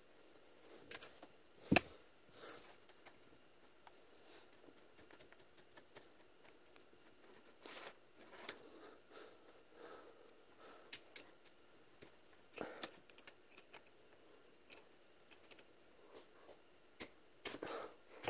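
Scattered light clicks and taps of an adjustable wrench and small brass throttle-linkage fittings being handled and turned, the sharpest click just under two seconds in and a small cluster near the end, over a faint steady high-pitched tone.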